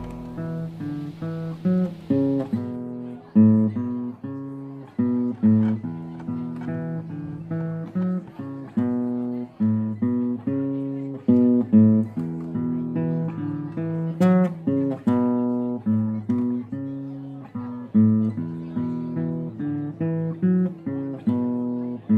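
Solo acoustic guitar playing an unhurried melody of plucked single notes and chords, each note ringing out and fading, with a few louder strummed chords.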